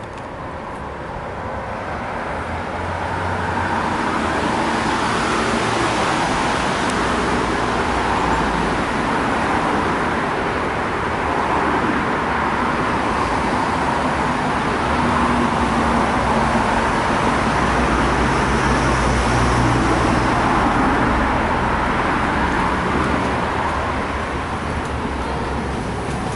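Steady rumbling roar of vehicle noise, fading in over the first few seconds and then holding level.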